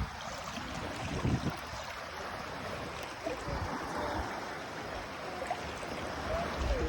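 Steady rush of sea water, with a few low thumps of wind on the microphone.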